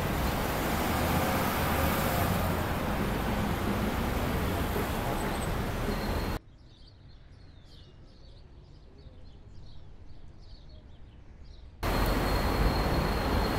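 City street traffic noise that cuts off abruptly about six seconds in to a much quieter stretch of small birds chirping. The traffic noise cuts back in near the end, with a thin steady high tone over it.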